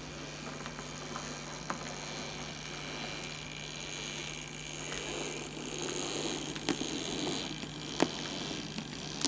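OO gauge model trains running on the layout: a steady electric hum, with the rolling sound of a passing train building from about halfway and a few sharp clicks of wheels over rail joints, the loudest near the end.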